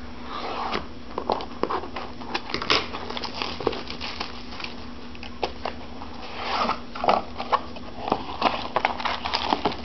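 Crinkling and rustling of plastic and foil wrapping as a pack of 2011 Topps Supreme football cards is torn open, with many quick clicks and crackles from handling, over a faint steady hum.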